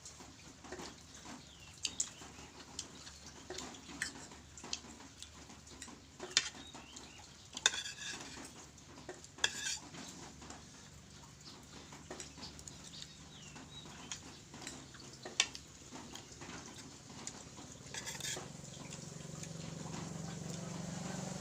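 Spoons and forks clinking and scraping against dishes while eating, in scattered sharp clicks. A low steady hum builds near the end.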